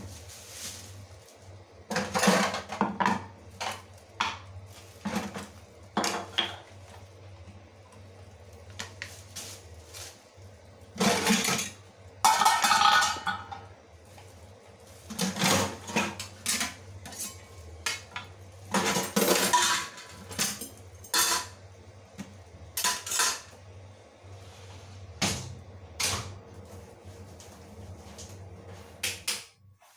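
Steel dishes, lids and utensils clattering and clinking as they are lifted out of a cluttered stainless-steel kitchen sink and set down, in irregular clusters of knocks, with one longer metallic ring about twelve seconds in.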